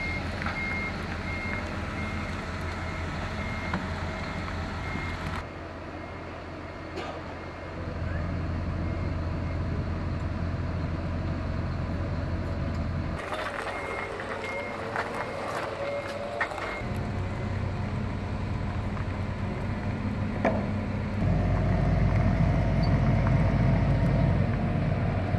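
Forklift diesel engines running steadily, with a reversing alarm giving repeated high beeps near the start and again about halfway through.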